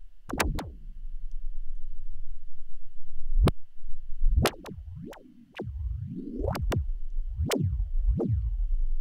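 A sample mangled by the CDP pitch-warp distortion in Renoise, playing back as a 'mud pie' of about nine sharp hits. Each hit sweeps steeply down in pitch from high to low, like a kick drum, and slower whining glides come in during the second half.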